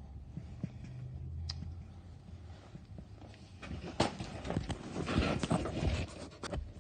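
Irregular knocks and clicks of hard objects being handled, starting about four seconds in and continuing, over a low steady hum.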